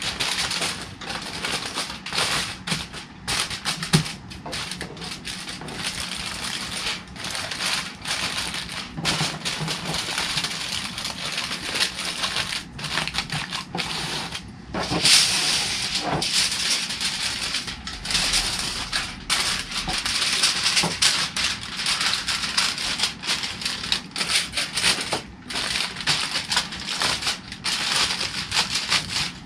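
Aluminum foil being folded and crimped by hand into a closed cooking packet: continuous, irregular crinkling and crackling, somewhat louder around the middle.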